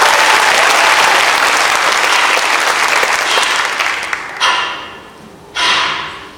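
Theatre audience applauding. The applause fades away about four seconds in and is followed by two short, loud hits about a second apart, the second one louder.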